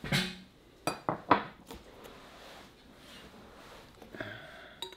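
Ceramic coffee mugs and dishes knocking and clinking on a kitchen countertop as they are picked up and set down: several sharp knocks in the first two seconds, another near the end.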